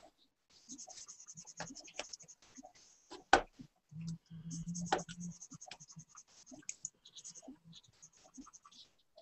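Pen scratching on paper in quick short strokes while a caricature is inked. A sharp click sounds about a third of the way in, and a weaker one near the middle.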